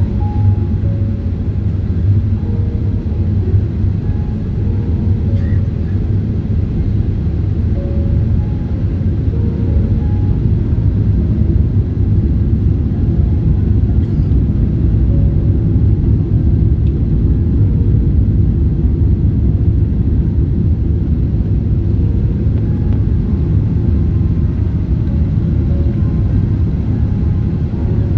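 Steady low rumble of engine and airflow noise heard inside the cabin of a Boeing 777-300 airliner.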